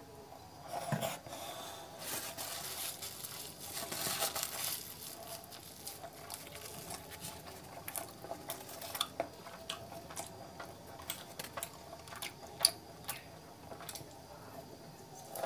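Close-miked eating sounds: cooked chicken being torn apart by hand and pressed into curry, a rustling, squishing stretch early on, then chewing with many small wet mouth clicks.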